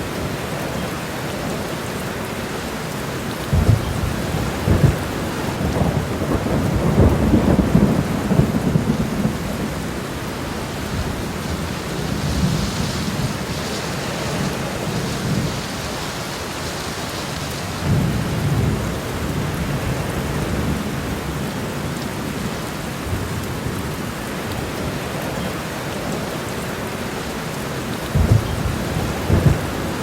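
Heavy rain falling on a road, a steady hiss, with low rumbling swells and several thumps, the biggest swell from about six to nine seconds in.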